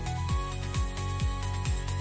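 Upbeat electronic background music without vocals: a kick drum dropping in pitch about twice a second under sustained synth notes.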